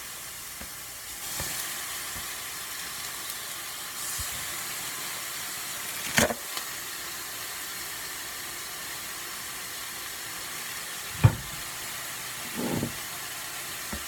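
Food sizzling in a hot frying pan, a steady hiss, with a few sharp knocks of kitchenware; the loudest knock comes about eleven seconds in.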